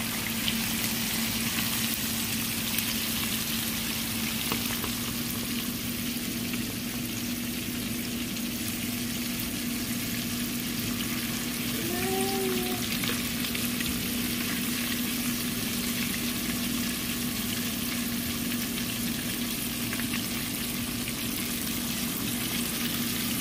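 Breaded seafood deep-frying in a pot of hot oil: a steady, even sizzle of bubbling oil, with a low steady hum underneath.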